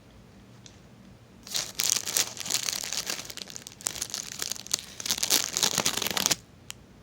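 Foil wrapper of a Pop-Tarts pouch crinkling and tearing as it is opened, a dense crackle that starts about a second and a half in and stops abruptly about a second before the end.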